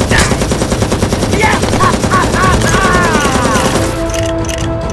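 Rapid automatic gunfire sound effect laid over a toy Nerf blaster firing, with a few short falling cries in the middle. Music with held notes takes over near the end.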